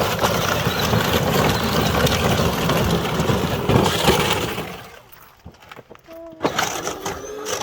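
Power Wheels Jeep Hurricane ride-on toy, run on a 20-volt battery, crunching and rattling its hard plastic wheels over rocks and gravel. The crunching stops about five seconds in, leaving a few scattered clicks.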